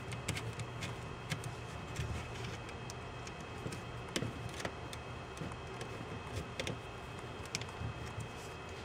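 Faint, irregular small clicks and taps of small screws and nuts being tightened on a layered plastic case, over a steady low background hum.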